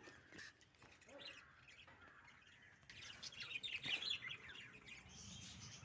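Small pet parrots kept as love birds chirping: a few faint scattered chirps, then a quick, dense run of high twittering about three seconds in.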